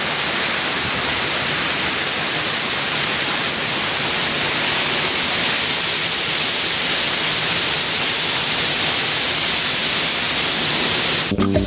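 Bamni Falls waterfall: water pouring onto rocks close by, a loud, steady rush. Music cuts in abruptly just before the end.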